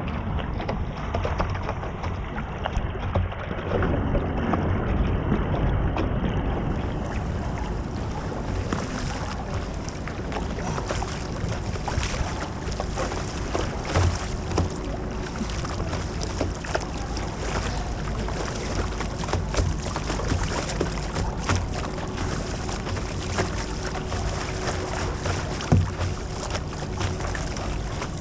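Rushing, churning whitewater on an artificial canoe slalom course, heard close up from a camera on a kayak, with wind buffeting the microphone. Irregular splashes and knocks run through the steady water noise.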